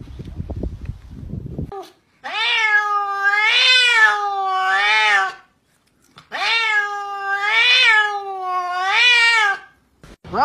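A grey-and-white cat giving two long meows, each about three seconds, the pitch rising and falling several times within each call so that it sounds like talking.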